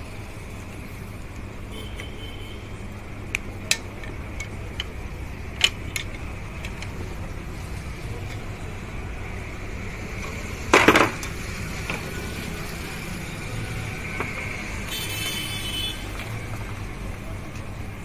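Metal tools and engine parts clinking and clanking during hand assembly: a few light clicks, one louder clank about eleven seconds in, and a short metallic ring near the end, over a steady background hum.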